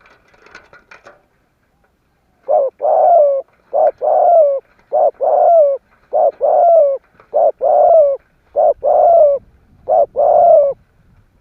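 A spotted dove cooing: seven repeated coos, each a short note followed by a longer one that falls at its end, about one pair every 1.2 seconds.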